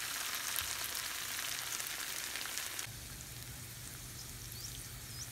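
Lengthwise-cut ivy gourd (tindora) frying in oil in a nonstick pan: a steady sizzling hiss that softens a little about three seconds in.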